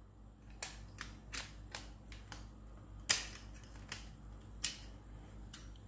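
Sharp clicks and clacks of a steel branch-holder attachment being handled and fitted onto the plastic nose of a cordless garden saw, metal knocking on plastic and metal, with the loudest click about three seconds in.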